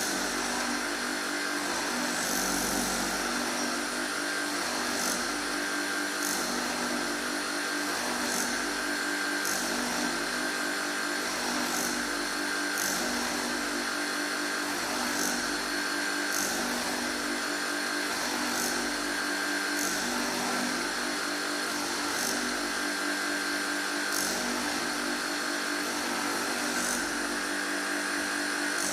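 Surface grinding machine running: a steady motor and spindle hum with short grinding hisses roughly once a second as the reciprocating table carries the workpiece under the wheel.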